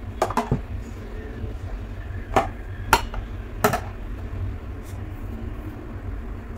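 Spice containers knocking and clicking against each other and the shelf as they are handled and set down: a pair of sharp knocks near the start, then three more spread through the middle, over a steady low hum.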